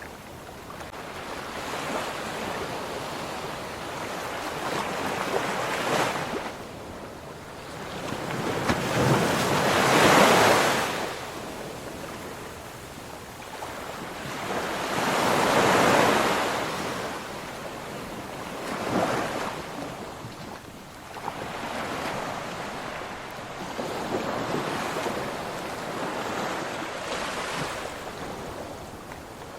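Ocean surf: waves breaking and washing in, the roar of water swelling and falling away every few seconds, with the biggest surges about a third of the way in and again near the middle.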